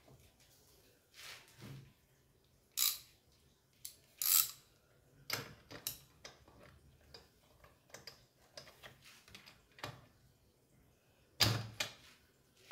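Hands working on a Stihl MS210 chainsaw's plastic housing and top cover: scattered clicks, taps and knocks of plastic and tools, with the loudest knocks near the end.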